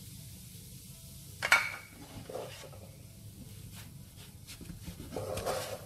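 Spatula stirring and scraping mashed sweet potato and powdered milk around a nonstick frying pan, in uneven strokes. A sharp knock about a second and a half in is the loudest sound.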